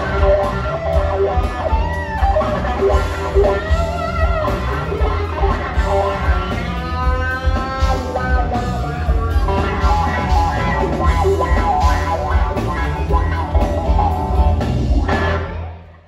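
Live blues band playing, led by an electric guitar solo over bass guitar and drum kit, with a long guitar note shaken with wide vibrato about halfway through. The music stops abruptly near the end.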